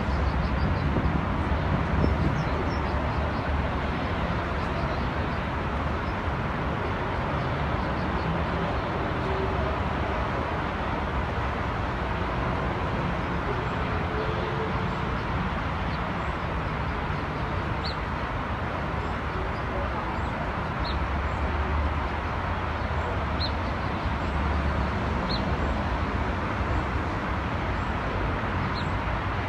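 Steady outdoor city background noise with a constant low rumble like distant traffic. A few short, high chirps come through in the second half.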